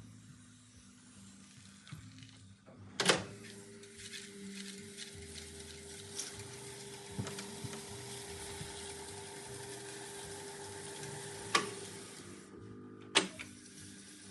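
Revox B77 MK2 reel-to-reel tape recorder buzzing at idle: a steady low hum. Three sharp clicks break in, one about three seconds in and two near the end.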